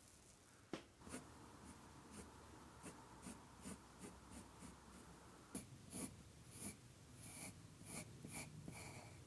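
A wooden pencil scratching faintly across copy paper in short, irregular strokes while drawing an outline, with small ticks as the lead touches down.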